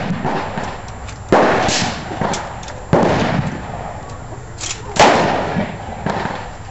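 Gunshots at a shooting range: three loud reports about one and a half to two seconds apart, each trailing off in echo, with fainter pops between them.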